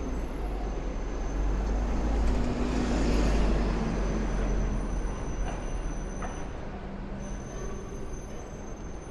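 Street traffic: a heavy vehicle's engine passing close by, growing louder to a peak about three seconds in, then fading away.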